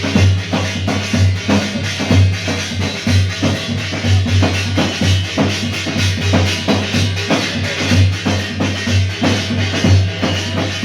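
Music with a steady, loud drum beat and percussion.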